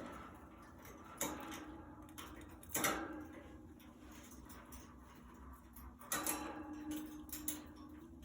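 Budgies moving about a wire cage: irregular light clicks and taps, with three louder knocks, over a faint steady hum.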